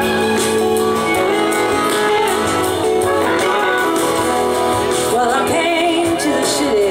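Live band music: a woman singing lead over electric guitar, drums and cymbals, with a wavering, sliding melody line near the end.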